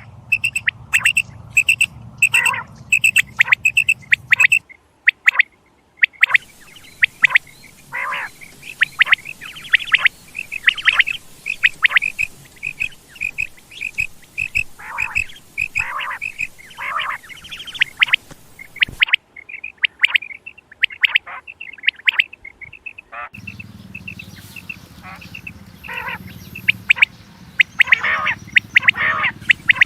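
Quail calling: a long run of short, high chirping notes repeated several times a second, with some lower notes among them. A low hum lies under parts of it, and the background cuts in and out abruptly between segments.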